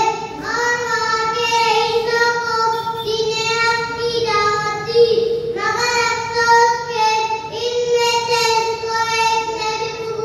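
A young girl singing a slow, chant-like melody into a microphone, holding long notes on a nearly level pitch with short breaks between phrases.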